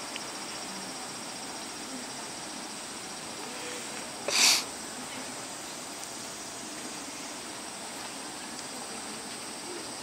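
Steady high-pitched insect chirring, broken about four seconds in by one short, sharp, breathy burst.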